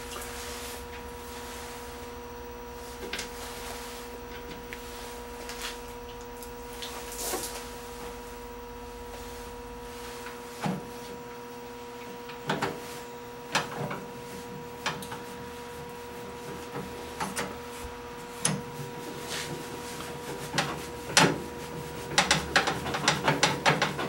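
Scattered clicks and knocks of plastic and metal parts being handled and fitted into a microwave oven's door latch housing. They come more often near the end, over a steady hum.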